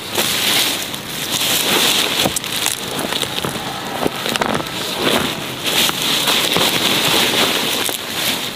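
Dry ginger stalks and leaves rustling and crackling, with roots snapping and tearing out of the soil as a ginger clump is pulled up by hand, many short crackles over a steady high hiss.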